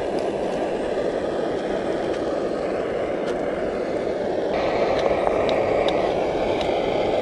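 A gas-canister camp stove burner runs with a steady rushing noise under a skillet of morel mushrooms frying in butter. The sizzling grows stronger about halfway through, with a few light ticks as a fork works the pan.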